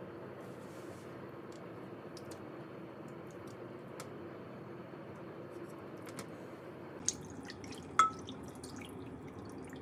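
Soft tofu being cut by hand with a kitchen knife and the wet cubes dropping into a ceramic pot: faint soft drips and ticks, with two sharper taps near the end, over a steady low hum.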